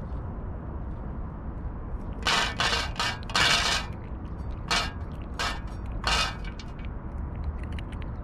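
A cat eating from a stainless steel dish close by: a cluster of about six short crunching, scraping sounds of chewing food and the metal dish being nudged, over a steady low rumble.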